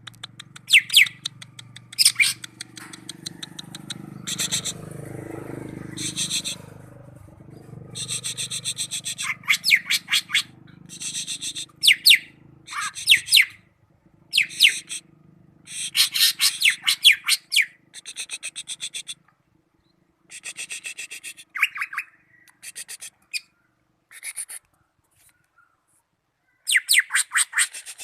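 Cucak ijo (green leafbird) singing: repeated bursts of fast, high chattering phrases, each lasting a second or so, with short pauses between them.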